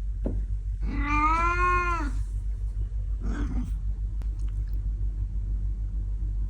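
Old cat meowing: one long drawn-out meow about a second in, then a fainter, shorter call in the middle, over a steady low hum.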